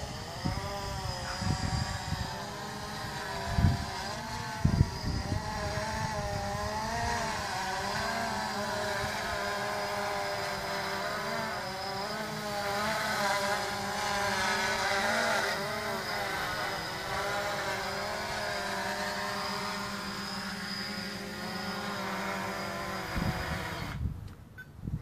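Quadcopter drone's electric motors and propellers buzzing in flight, the pitch wavering up and down as the throttle changes. A couple of low thumps come about four and five seconds in. The motors cut off suddenly near the end, once the drone has landed.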